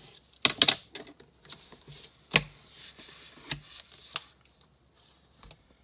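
Page of a spiral-bound planner being turned and the planner shifted on a wooden table: soft paper rustling with several sharp clicks and taps, a quick cluster about half a second in and a loud one near the middle.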